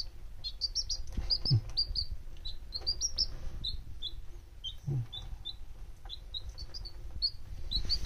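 Baby chicks peeping: a steady run of short, high cheeps, several a second, with a couple of soft low bumps.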